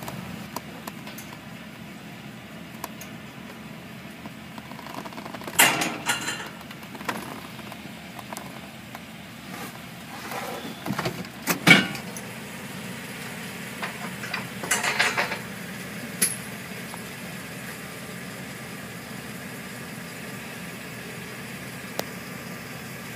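Vehicle engine idling steadily, heard from inside the cab. A few short, loud knocks or clatters come over it; the loudest is about twelve seconds in, and a rattling cluster follows a few seconds later.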